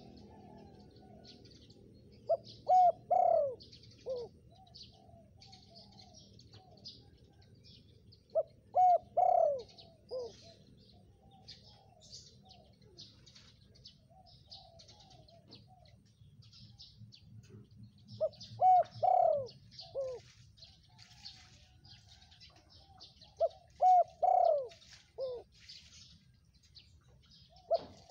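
Spotted dove cooing: four phrases, each a short run of low coos with one longer, louder note in it, coming every five to ten seconds, with another phrase starting near the end. Small birds chirp faintly in the background.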